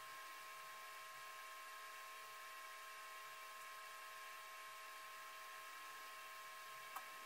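Near silence: a faint steady electrical hum over room tone, with a single short click near the end.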